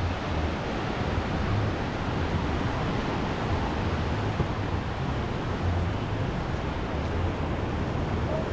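Small surf waves washing steadily onto a sandy beach, with wind buffeting the microphone in low, irregular rumbles.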